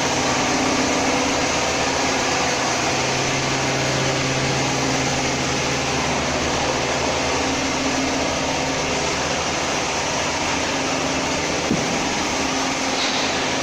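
Vacuum frying machine running: a steady mechanical whir with a constant low hum, from its motor and vacuum pump.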